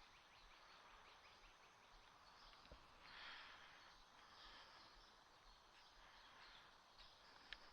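Near silence: faint outdoor ambience, with faint rapid ticking early on and a brief soft hiss about three seconds in.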